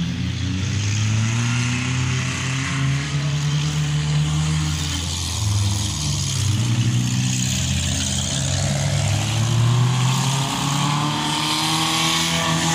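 Demolition-derby car engines running and revving, the pitch rising and falling, with a climbing rev near the end.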